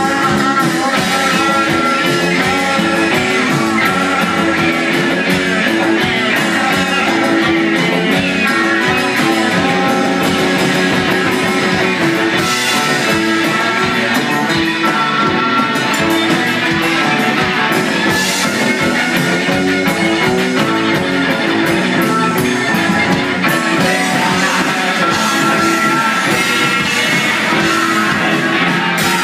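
Rock band playing live, with guitar to the fore.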